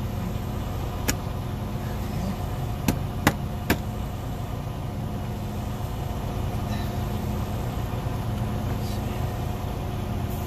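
Click-type torque wrench on an air spring's mounting nut giving a sharp click about a second in, then three more close together around three seconds in, over a steady low hum.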